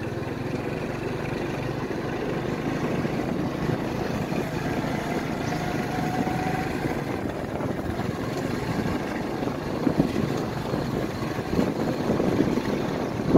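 Motorbike engine running steadily at low speed, heard from on board while riding, with a couple of brief knocks near the end.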